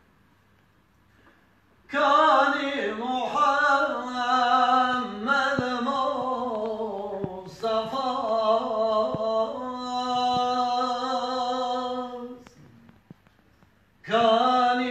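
A man singing solo, unaccompanied, in long held and ornamented notes: a devotional song in praise of Muhammad Mustafa. The voice comes in about two seconds in, pauses for breath near the end, and starts again just before the end.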